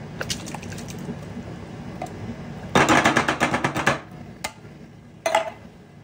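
Canned diced tomatoes and artichoke hearts tipped out of their cans into a glass mixing bowl: a wet, clattering burst of plops for about a second around the middle, then a couple of single knocks, the last with a short ring.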